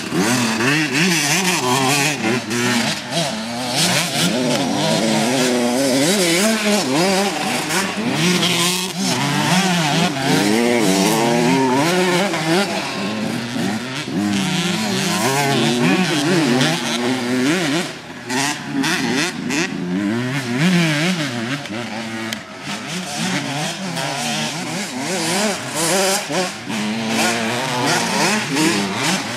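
Several motocross dirt bikes riding the track, their engines revving up and down through throttle blips and gear changes, overlapping one another. The engine note drops away briefly a little past halfway, then picks up again.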